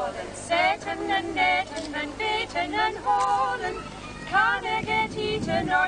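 A group of adults and children singing together, several voices overlapping.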